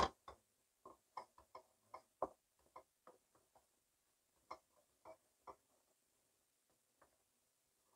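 Wooden spoon stirring thick polenta in a stainless steel pot: faint, irregular clicks and taps of the spoon against the pot, the loudest right at the start.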